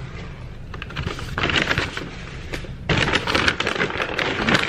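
Brown paper takeout bag rustling and crinkling as it is handled close to the microphone, in two bouts starting about a second and a half and three seconds in.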